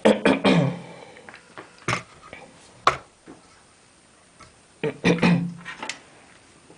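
Cables and plastic parts being handled inside a computer case: rattling and knocking near the start and again about five seconds in, with single sharp clicks in between.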